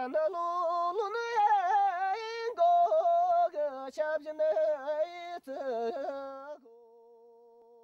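A solo voice singing Tibetan lhamo opera in a high, ornamented style with quick warbling turns between held notes. The singing breaks off near the end, leaving a faint steady held tone that wavers slightly.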